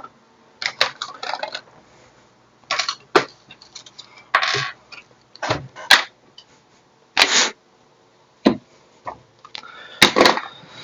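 Irregular clicks, taps and rustles from small objects being handled close to the microphone, a dozen or so short sounds with quiet gaps between, one sharper click about six seconds in.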